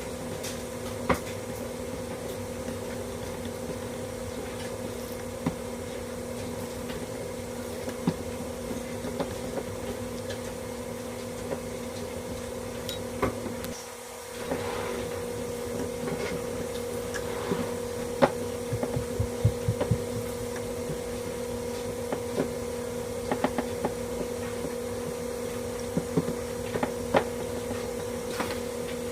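A steady low hum holding two fixed tones, with scattered small clicks and taps over it; the hum dips briefly about halfway through.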